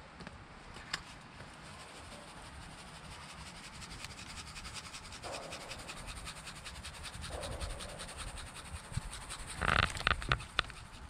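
Quiet background with faint handling noises, then a cluster of quick rattles and taps near the end as a plastic black pepper shaker is shaken over seasoned fish fillets.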